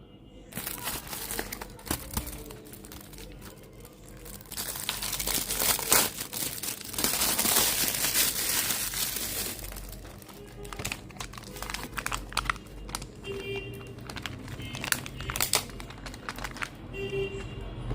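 Packaging being unwrapped and handled, a loud crinkling that peaks for several seconds in the middle, with many small clicks and taps.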